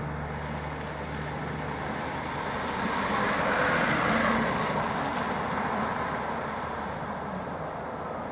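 A van driving through surface floodwater on a lane, its tyres swishing and spraying through the water. It approaches, is loudest as it passes close by about four seconds in, then fades as it drives away.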